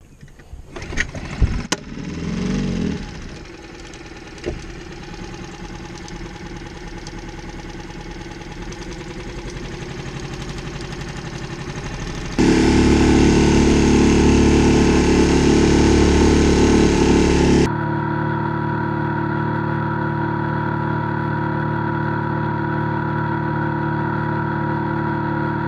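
Small tiller outboard motor starting, then running steadily. The sound grows louder gradually, jumps abruptly louder about halfway through, and changes abruptly again to a steady hum for the last third.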